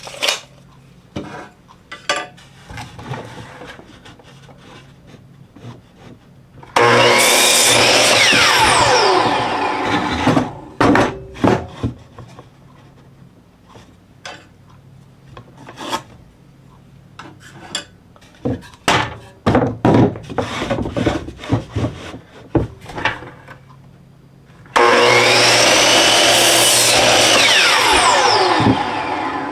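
Electric miter saw cutting 2x4 lumber twice: each time it starts suddenly at full level, cuts through the board for a few seconds, and its whine falls in pitch as the blade winds down. In between, boards knock and clatter as they are handled.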